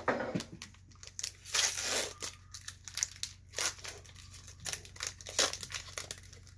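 Foil Pokémon booster pack wrapper crinkling and tearing as it is handled and opened, in irregular sharp crackles and short rustles.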